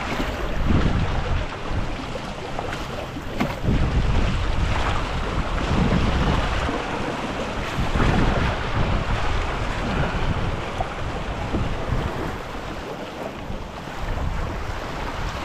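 Wind buffeting the head-mounted camera's microphone in irregular gusts, over the steady rush and splash of water along the hull of a small wooden proa under sail.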